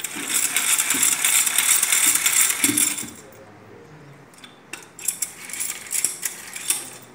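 Pump-action paint roller spinner whirring and ratcheting as its handle is pumped, spinning a wet roller so water flings against a plastic bucket. It stops after about three seconds, then from about four and a half seconds in comes a second, irregular run of clicks and rattles as the spinner is pumped again.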